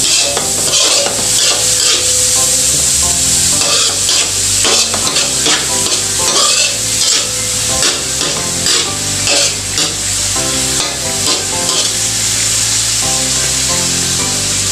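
Ground pork frying and sizzling steadily in a large metal wok, with a metal spatula scraping and stirring against the pan in repeated strokes.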